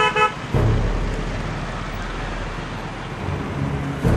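Road traffic: cars and motorbikes driving past in a steady wash of engine and tyre noise. A short double beep sounds right at the start.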